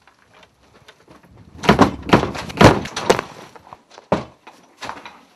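Banging on a door: a quick run of loud thumps and bangs about two seconds in, then two single knocks.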